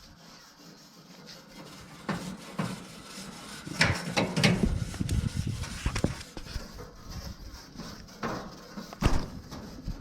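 Handling noise: scattered knocks and scraping, rubbing sounds, busiest about halfway through, with one more sharp knock near the end.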